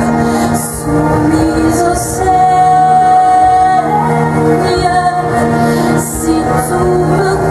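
A slow song: a singer holds long notes over instrumental accompaniment.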